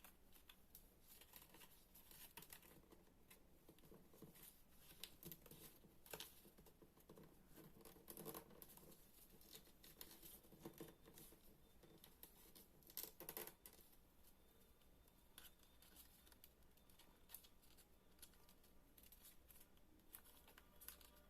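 Faint rustling and crinkling of a sheet of paper being folded and creased by hand, in short irregular strokes with a few louder crisp ones.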